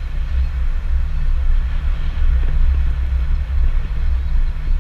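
Wind buffeting the microphone in a steady low rumble, over the hiss of surf breaking on the shore.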